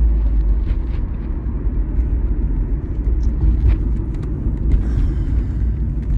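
Steady low road and engine rumble heard inside the cabin of a moving car, with a few faint clicks.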